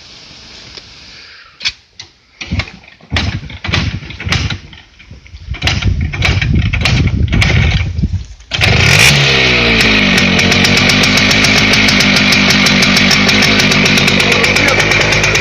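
A small petrol engine being started: a series of irregular knocks and sputters, then it catches about eight and a half seconds in, its pitch rising, and settles into a steady fast run.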